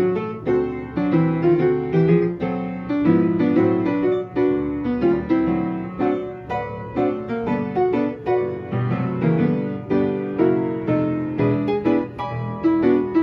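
Background piano music, a steady run of struck notes that ring and fade, several a second.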